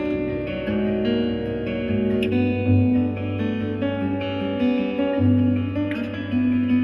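Solo acoustic guitar played fingerstyle: plucked melody notes ringing over held bass notes.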